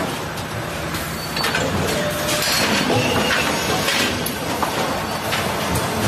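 Veneer peeling line running: log loader and rotary peeling lathe giving steady machine noise, with scattered metal clanks and knocks.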